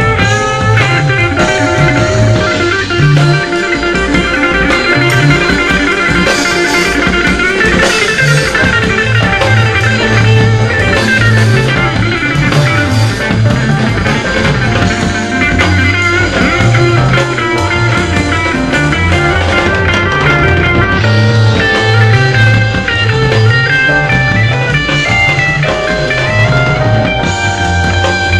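Progressive rock band playing live without vocals: a semi-hollow electric guitar plays fast lead runs over bass guitar and drums.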